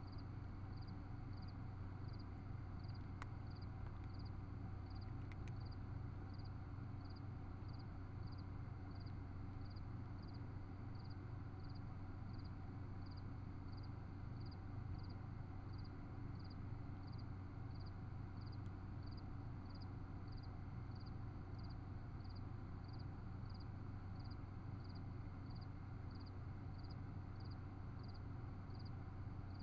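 Steady low electronic hum, most likely the trail camera's own self-noise, with a faint high tick repeating evenly about three times every two seconds. A few faint clicks stand out, about three seconds in, near five and a half seconds, and again later.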